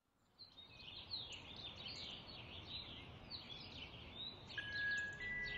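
Small birds chirping in a dense chatter of short, quick, downward chirps over a low outdoor background hum, fading in at the start. Near the end a bell-like chime note enters as music begins.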